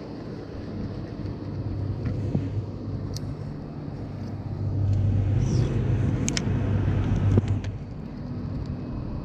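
A motor's low, steady drone that grows louder in the middle, with a few sharp light clicks over it.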